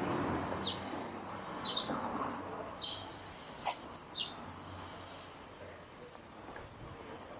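Small birds chirping in short, repeated calls roughly once a second, with faster high-pitched ticking calls, over a faint background hum.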